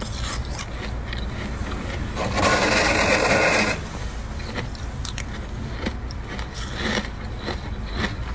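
Thick freezer frost being scraped, with a louder continuous scrape about two seconds in that lasts a second and a half, and small crackles and clicks of breaking ice around it.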